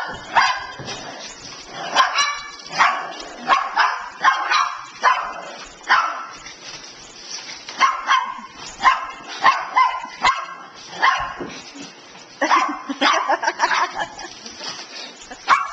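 Dogs barking in many short, sharp barks in quick succession during rough play, with a brief lull a little before the end.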